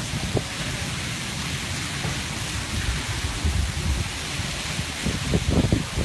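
Heavy rain falling steadily, with wind rumbling and buffeting on the microphone, gusting a couple of times near the end.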